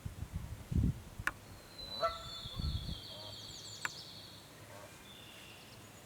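A Canada goose gives a short honk about two seconds in, while a songbird sings a high, fast trill. Two sharp clicks and some low rumbling thumps are heard during the first few seconds.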